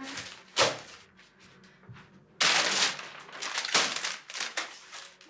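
A sharp knock, then several loud bursts of paper rustling as sheets are grabbed and handled on a desk.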